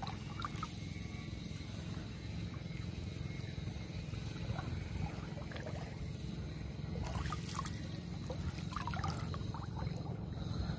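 Lake water trickling and splashing lightly as a gill net is lifted and pulled along the surface, over a steady low rumble. Small splashy drips come and go, busiest toward the end.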